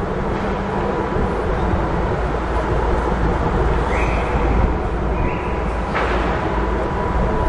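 Steady low rumble of heavy machinery, joined by a thin steady whine about five seconds in, with two brief higher tones around four and five seconds and a single sharp knock near six seconds.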